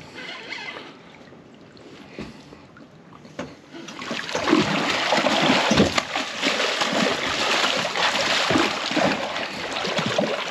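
A big catfish thrashing and splashing hard at the surface while it is scooped into a landing net beside the boat. The heavy, irregular splashing starts about four seconds in.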